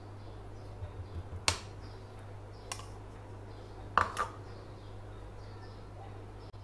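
Handling sounds while filling dough: a few sharp clicks of a metal spoon against a plastic bowl, about a second and a half in and again near three seconds, then a quick double knock about four seconds in as the bowl is set down on the counter, over a steady low hum.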